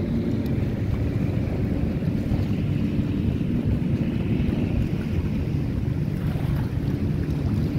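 Motorboat engine running steadily as a low drone, mixed with wind buffeting the microphone and choppy water washing.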